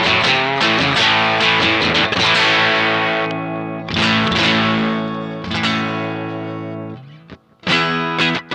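Stratocaster electric guitar played through a Silver Keg fuzz pedal, with a distorted sound. Quick picked notes and chords come first, then chords are left to ring and fade. There is a brief gap near the end before a fresh strum.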